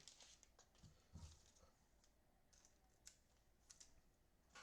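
Near silence with faint, scattered clicks and a soft thump about a second in: trading cards being handled and flipped through one by one.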